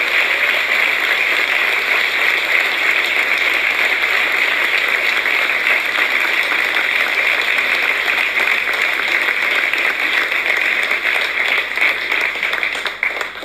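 A large audience applauding steadily, the clapping starting to die down right at the end.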